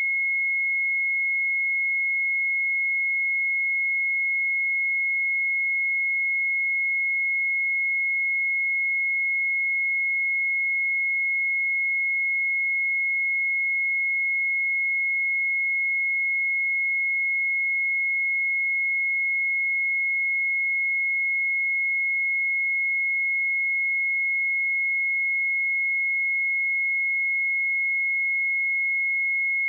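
A pure 2168 Hz sine-wave test tone, held steady at one pitch and level.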